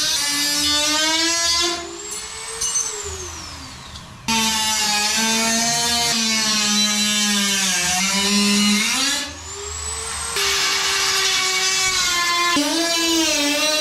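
Dremel rotary tool cutting aluminum, a high motor whine whose pitch sags and wavers as it bites into the metal. It eases off twice, about two seconds in and again about nine seconds in, leaving a thinner high whine before it bears down again.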